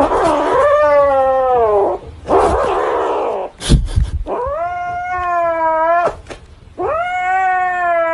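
Kitten yowling in three long, wavering cries, defending the stuffed toy it clutches as a hand reaches for it. A brief knock comes between the first and second cries.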